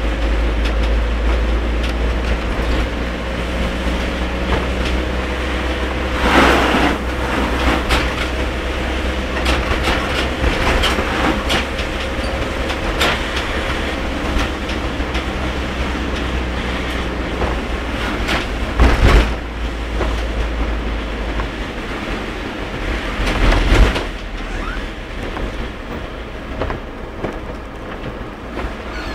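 Car driving through very heavy rain on wet roads: a steady low rumble of engine and tyres under a constant hiss of rain and spray, with a few louder swooshes about six, nineteen and twenty-four seconds in.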